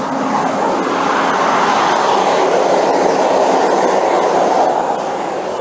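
A fire engine running close by, a loud steady rumble that swells about two seconds in and eases off near the end.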